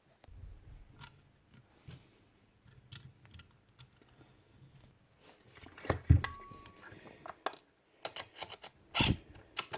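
Scattered clicks, scrapes and taps of a small screwdriver prising at the pressed-on magnetic speed-control pickup on a Ryobi router's armature. Louder knocks come just after six seconds and at about nine seconds, with a brief squeak after six seconds.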